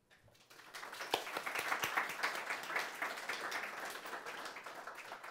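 Audience applauding: many hands clapping, building up within the first second and tapering off near the end.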